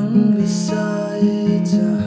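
A man singing a slow song while strumming an acoustic guitar.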